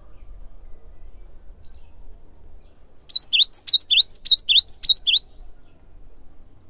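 Cinereous tit singing: a quick run of repeated high two-note phrases, lasting about two seconds and starting about three seconds in.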